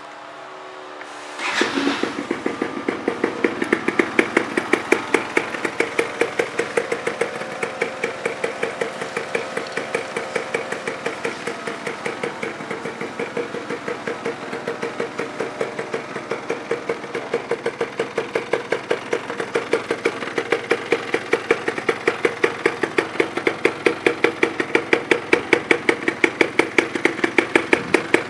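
Yamaha BWS100 scooter's 100 cc two-stroke single is cranked briefly and catches about a second and a half in. It then idles steadily with a regular pulsing beat, an engine the owner calls in good condition.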